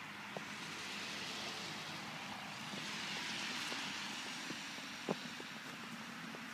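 Distant engine noise, like a passing vehicle or aircraft, rising to its loudest around the middle and easing off, over a steady low hum, with a few faint clicks.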